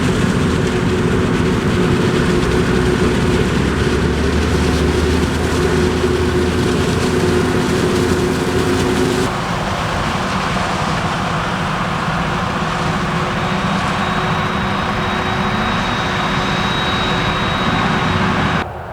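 Heavy farm machinery running steadily, a dense engine noise with a few steady tones. The sound changes abruptly about nine seconds in and drops again just before the end.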